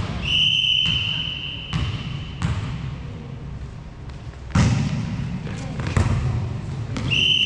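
Referee's whistle blown for about two seconds, then the thuds of a volleyball being struck during a rally, the loudest about halfway through, and a second whistle near the end.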